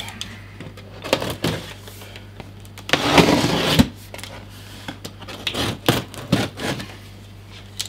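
Utility knife slitting the packing tape on a cardboard box. There is a longer scraping rasp about three seconds in and several light knocks against the box, over a faint steady hum.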